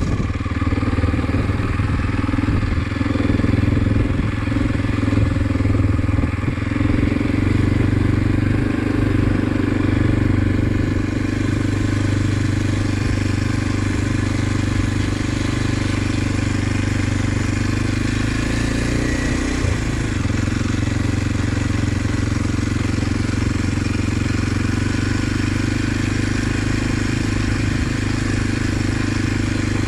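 Small dual-sport motorcycle's engine running steadily at low road speed, with a brief shift in its note about two-thirds of the way through.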